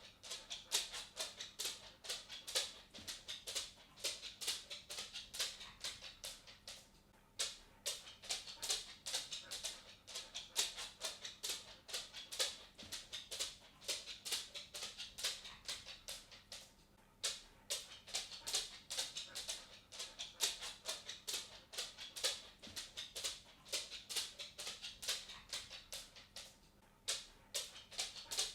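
A dog's claws clicking and tapping on a wooden floor as it walks about: a rapid, uneven patter of sharp ticks that breaks off briefly twice, about 7 and 17 seconds in.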